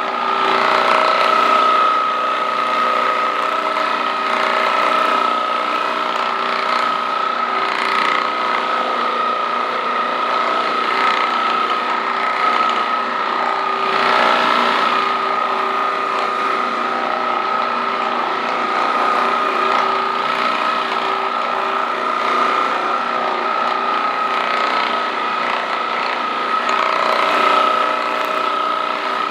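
Handheld electric percussion massage gun running steadily with a buzzing hum, with a few brief swells in loudness.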